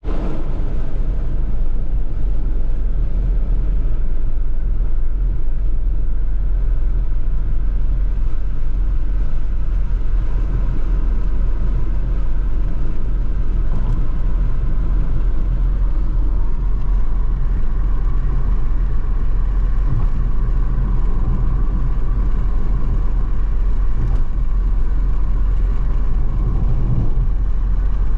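Steady car engine and road rumble from a car being driven, with a faint tone from the engine that rises in level for a while in the second half.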